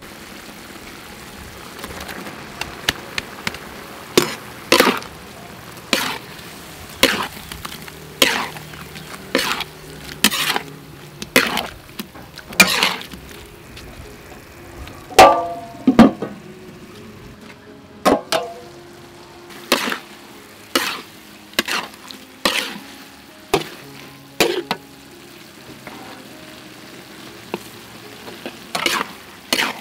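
Eggplant and minced pork stir-frying in a wok: a steady sizzle, with a metal spatula scraping and striking the pan about once a second. About halfway through comes a louder pair of ringing metal clangs.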